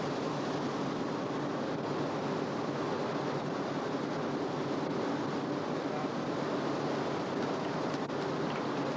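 Steady rushing of wind and water with a faint low engine hum beneath it, as on the deck of a motor ship under way.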